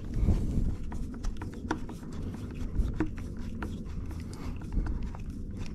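Steering-wheel parts being handled and fitted together by hand: a scatter of small clicks and taps over low rumbling handling noise.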